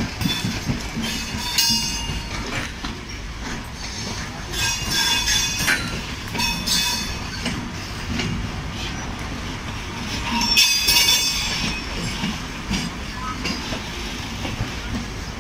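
Passenger train coaches of the 12304 Poorva Express rolling slowly along a curve through points, heard from aboard: a steady rumble of wheels on rail with clicks over joints, broken by several high wheel squeals, the loudest about eleven seconds in.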